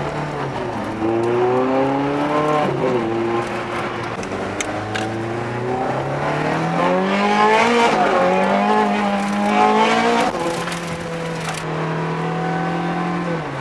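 Ferrari F430 Scuderia's V8 engine running, revved up and down several times, then settling into a steady idle. It is being run to check that it runs properly after its stored fault codes were cleared.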